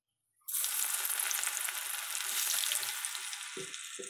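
Batter-coated cauliflower florets deep-frying in hot oil in a kadai: a dense sizzle starts suddenly about half a second in as they go into the oil, then eases slightly. Two low knocks come near the end.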